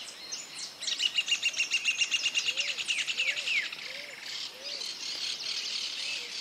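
Small birds chirping: a fast, chattering run of high chirps for about three seconds, then looser high twittering. A few soft low notes repeat about every two-thirds of a second underneath.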